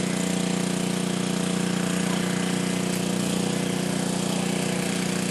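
A motor or engine running steadily, a constant drone that holds one pitch without change.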